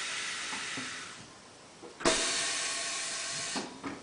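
Compressed air hissing from the pneumatic bead breaker of a Bright LC 885 automatic tyre changer, in two bursts. The first fades out about a second in; the second starts about two seconds in and cuts off sharply.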